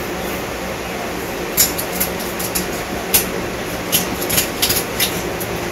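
Knife cutting through a pangas catfish's flesh and bone, giving a scattered series of about ten sharp clicks and crunches from about one and a half seconds in, over a steady background hiss.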